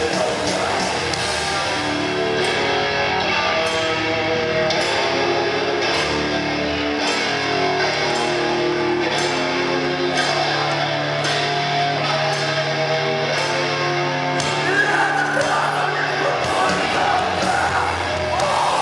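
Live rock band playing loud in a hall: electric guitar picking a stepping melody over bass and drums, with a long held low bass note through the middle and louder, busier sound near the end.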